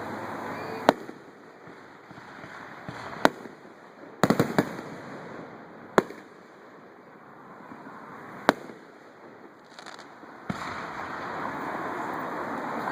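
Display fireworks shells bursting in the air: about seven sharp bangs, three or four of them in a quick cluster near the middle, over a steady crackling hiss. The crackle thickens and grows louder for the last couple of seconds.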